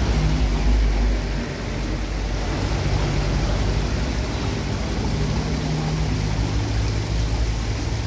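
Spring water running through a stone-lined channel: a steady rushing noise with a heavy low rumble underneath.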